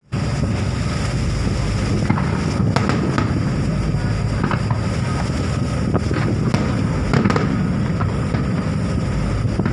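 Aerial fireworks shells bursting in quick succession: a continuous rumble of booms with sharp cracks every second or so throughout.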